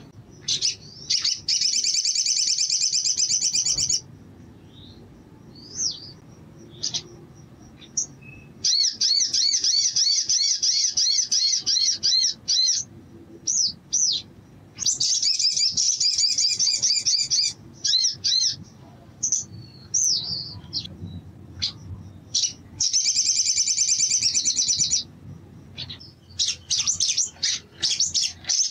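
Caged male olive-backed sunbird (sogon) singing. Its song comes in runs of very fast, high trills, each one to four seconds long, repeated about five times, with short single chirps in the gaps.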